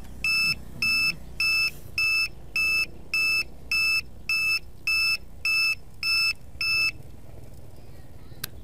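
Electronic buzzer on a landed hexacopter beeping: a regular string of short, high-pitched beeps, about one and a half a second, that stops about seven seconds in, followed by a single sharp click near the end.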